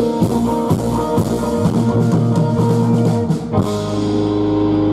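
Live rock band playing, with electric guitars, bass guitar and drum kit. About three and a half seconds in, the drums stop and the band holds one sustained chord.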